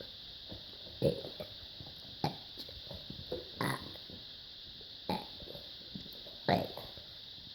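A person burping the alphabet, one short burp after another: five strong ones, about one every second and a half, with a few weaker ones in between.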